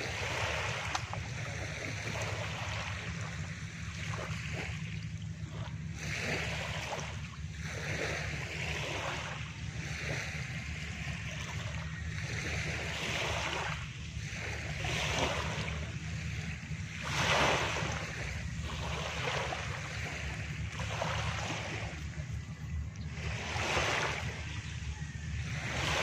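Small sea waves breaking and washing up a sandy, pebbly shore, one hissing surge after another every couple of seconds, the largest about two-thirds of the way through, over a steady low rumble.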